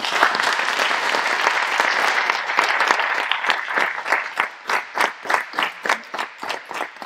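An audience applauding: thick, dense clapping that thins out after about three seconds into scattered, separate claps that taper off.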